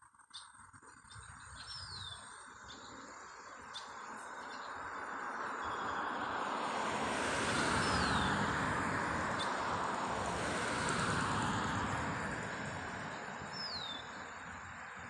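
Three short, high, downward-sliding bird calls, about six seconds apart, over a broad rushing noise that swells to its loudest about halfway through and then fades, like a vehicle passing on a nearby road.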